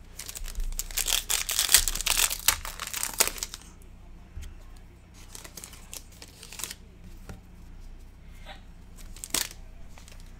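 Foil wrapper of a Court Kings basketball card pack being torn open and crinkled by hand for about three and a half seconds, then softer rustling as the cards are handled, with a sharp tap near the end.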